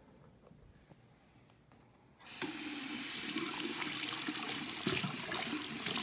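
Water from a bathroom sink faucet starts suddenly about two seconds in, then runs steadily into the basin and over pretzels held in the stream.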